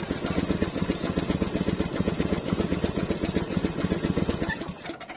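A small boat's engine running steadily with a fast, even beat, cutting off suddenly near the end.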